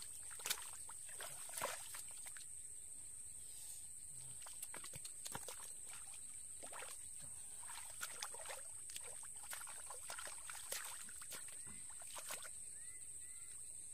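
Hands sloshing and scooping through shallow muddy water, with scattered wet splashes, slaps and clicks at irregular moments. A steady high-pitched whine sits underneath.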